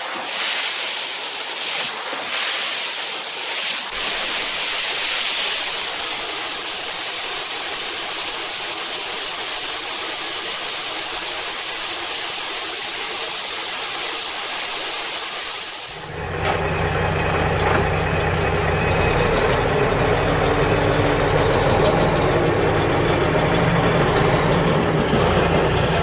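A steady hiss for about the first sixteen seconds, then it cuts out and a toy truck's small electric motor runs with a steady low hum.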